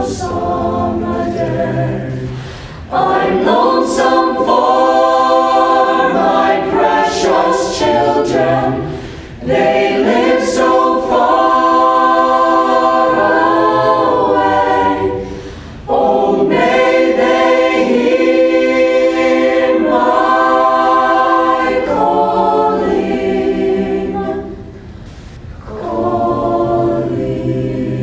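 Mixed-voice high school choir singing a cappella, in long phrases with brief pauses for breath between them.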